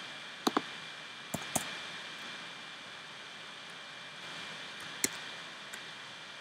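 A few sharp clicks from someone working a computer: two close pairs in the first two seconds and a single click about five seconds in, over a steady low hiss.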